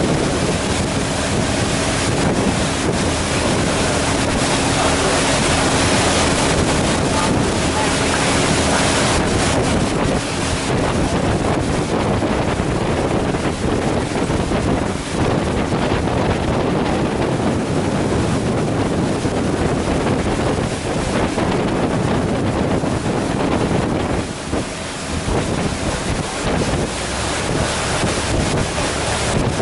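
Wind buffeting the microphone on a moving river boat, over the rush of water and a steady engine hum that is clearest in the first several seconds.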